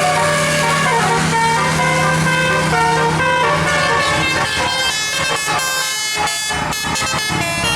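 A tour bus's telolet, a multi-note musical air horn, playing a tune of stepped notes over the low hum of the bus engine. About five seconds in, the notes turn short and rapid.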